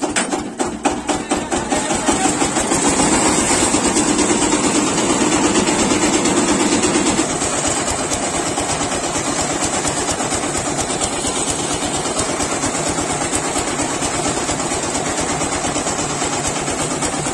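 Diesel engine of a portable concrete mixer starting, its firing pulses quickening over the first couple of seconds, then running steadily to turn the drum. It eases slightly about seven seconds in.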